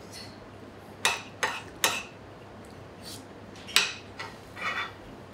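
Small metal spoon clinking against a plate: three quick taps about a second in, another tap near the four-second mark, then a short scrape.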